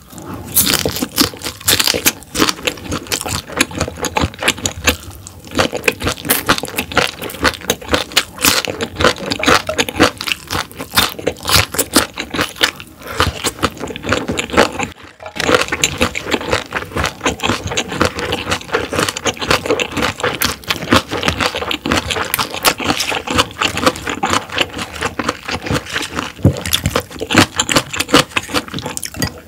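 Close-miked chewing of crunchy food: dense, irregular crunching and crackling, with a brief pause about halfway through.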